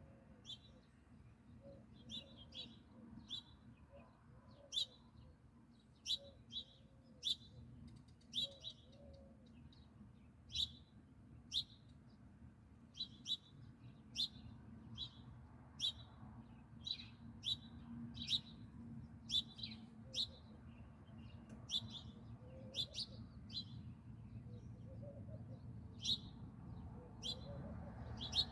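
Sparrows chirping: short, sharp single chirps, roughly one or two a second and irregularly spaced, over a low steady hum.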